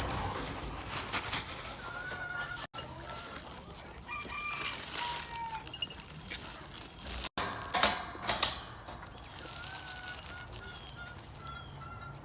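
Backyard chickens clucking, with a run of short repeated calls near the end.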